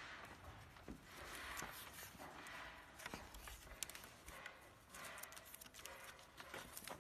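Faint rustling and scraping in short swells, with scattered light clicks, as a thin tie strip is pulled and wrapped around the joint of two bamboo scaffolding poles.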